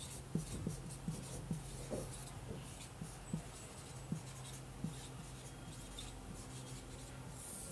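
Faint handwriting sounds: scratching strokes and small irregular taps of a writing tool on a surface, over a low steady hum.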